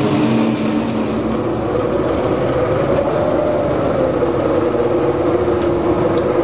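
Matra V12 Formula One engine idling steadily, with a slight swell in pitch about three seconds in.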